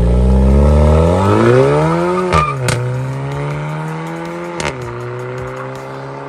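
VW Golf 1.4 TSI four-cylinder turbo petrol engine through an aftermarket valved stainless exhaust, revs climbing for about two seconds. The pitch then drops sharply with a couple of sharp clicks and holds a steady drone.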